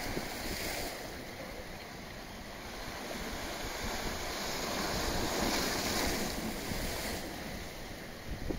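Wind rushing over a phone's microphone, with small waves washing on the bay. The rush swells louder about halfway through and eases near the end.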